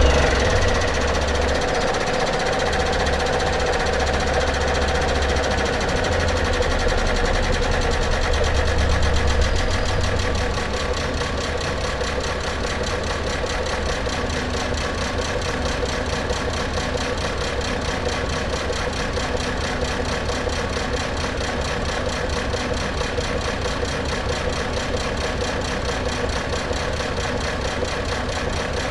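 Car engine running just after starting, a little louder for the first ten seconds or so, then settling into a steady idle.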